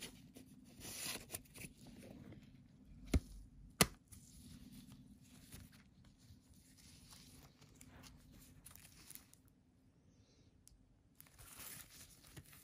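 Plastic CD jewel cases being handled: soft rustling and crinkling, with two sharp plastic clicks about half a second apart, about three seconds in, as a case snaps shut.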